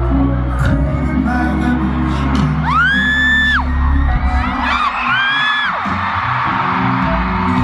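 Amplified pop music with deep bass over a stadium PA, cut through by two long, high-pitched screams from fans close by, about three seconds in and again about five seconds in; each rises, holds for about a second and drops away.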